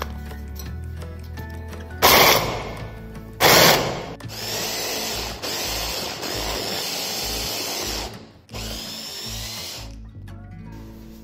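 Electric hand-held chopper's motor and blade pulsing through frozen strawberries: two short loud pulses about two and three and a half seconds in, then a steadier run of about four seconds, a brief stop, and a shorter run near the end. Background music plays underneath.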